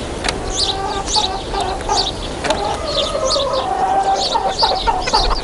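Chickens clucking in a busy chatter of short calls, mixed with many quick high chirps.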